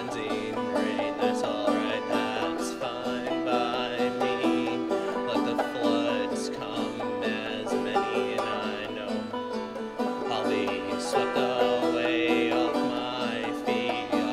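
Folk song with a plucked banjo playing steadily.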